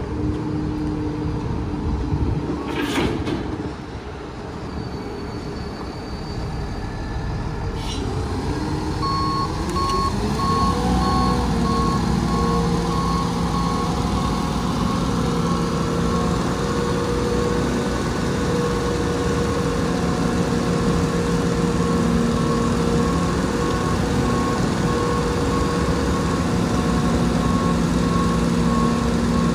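Garbage truck's diesel engine running, then revving up about ten seconds in and holding a higher speed to drive the hydraulics as the Heil Dura Pack 5000's rear tailgate lifts, with a warning beeper sounding steadily from then on. A couple of sharp knocks come earlier.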